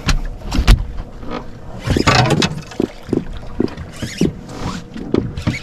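Irregular knocks and water splashing on a small boat, with a louder rushing splash about two seconds in.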